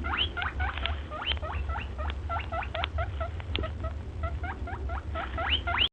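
Rabbit squeaking: a quick run of short, high squeaks, each sweeping upward in pitch, about four or five a second, over a steady low hum.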